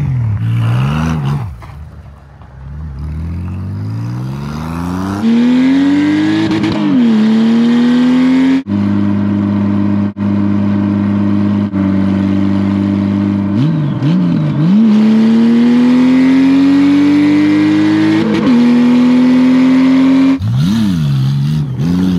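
Honda Gold Wing motorcycle engine pulling hard through the gears: the pitch climbs and falls back sharply at each upshift, about seven, fourteen and eighteen seconds in, and holds steady at cruising speed in between. Quick rev blips come at the very start and again near the end.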